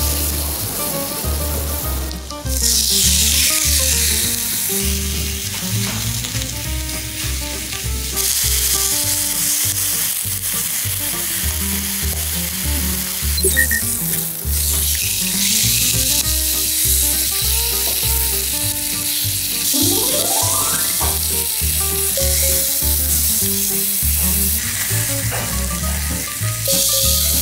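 A hot ridged grill pan sizzling: first drops of water rolling into beads on it, the sign the pan is hot enough, then pork neck searing. The sizzle swells about two seconds in, under background music with a steady beat.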